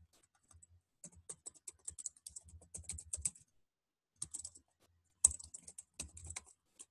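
Typing on a computer keyboard: quick runs of keystrokes broken by short pauses, with one sharper key strike about five seconds in.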